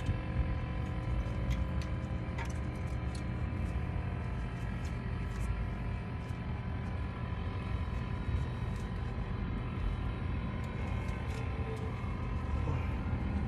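Steady low rumble with a few faint, light clicks, mostly in the first few seconds, as brake pads and their clips are handled and seated in a front caliper bracket.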